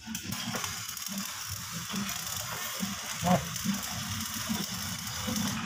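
Stick (arc) welding under way on the steel under the bumper: the arc gives a steady crackling hiss.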